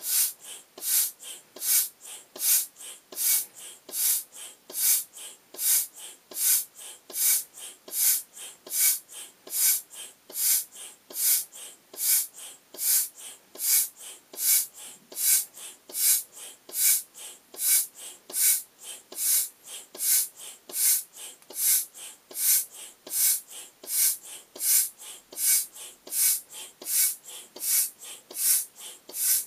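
Foot pump inflating a vinyl beach ball through a hose: a hiss of air with each stroke, repeating evenly a little over once a second, with softer sounds between the strokes.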